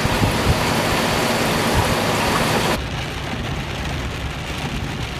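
Heavy rain pouring down in a thunderstorm downpour, a dense steady hiss. About three seconds in it cuts abruptly to a quieter, duller rain sound.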